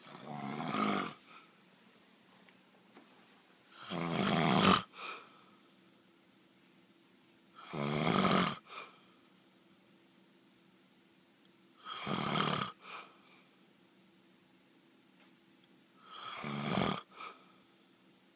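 A man snoring in sleep: five rough snores at a steady pace, about four seconds apart, each lasting about a second and followed by a short, softer puff of breath.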